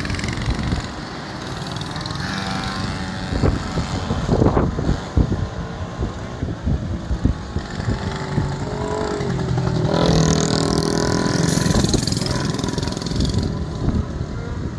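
Small minibike engines running and revving as the bikes race around the course, with one rising in pitch as it accelerates about ten seconds in.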